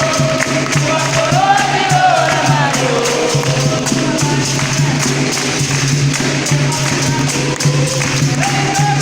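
Capoeira roda music: a voice singing over a steady rhythm of pandeiro jingles and a low, pulsing percussion drone.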